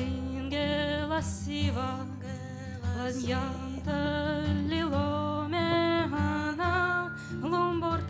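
A woman singing a melody in phrases of a second or two, accompanied by acoustic guitar.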